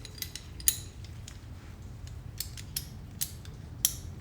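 Metal wrenches clicking and scraping against a steel lock nut as they are fitted to break it loose: scattered sharp metallic ticks, two of them louder, about a second in and near the end.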